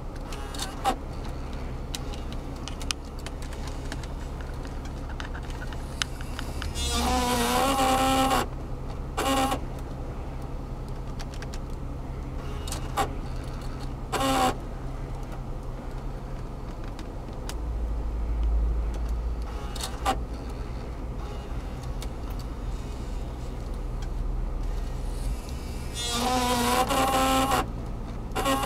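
Sharp button clicks and, twice, a whirring motor whine from a 2002 Lexus in-dash six-disc CD changer trying to work in CD mode. The player is faulty, showing error code 3. A steady low hum runs underneath.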